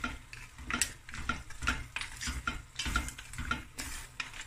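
Wooden spoon stirring shell-on prawns and mussels in a stainless steel pot, making irregular clacks and scrapes several times a second.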